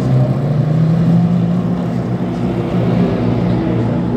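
Sports-car racing engines running hard as a group of prototype and GT race cars passes along the track: a loud, steady engine drone whose note rises a little about a second in.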